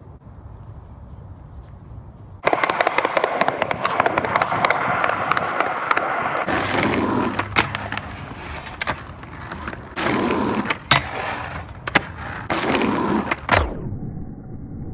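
Skateboard rolling over rough asphalt, a gritty roll full of clicks, with louder stretches of the board scraping along a metal flat bar. It starts abruptly about two and a half seconds in and cuts off shortly before the end.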